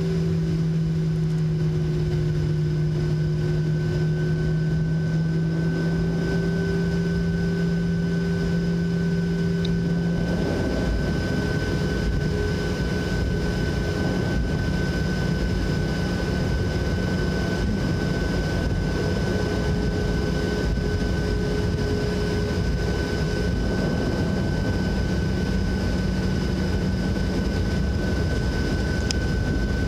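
Boeing 737-700 cabin noise: its CFM56-7B turbofans droning steadily under a constant rush of noise, with a steady high whine. The low engine hum changes pitch and level about ten seconds in.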